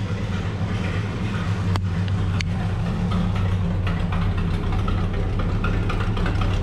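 Small-block Chevy V8 in a vintage modified race car idling steadily, cold, shortly after being started up on fresh oil. Two short sharp clicks sound about two seconds in.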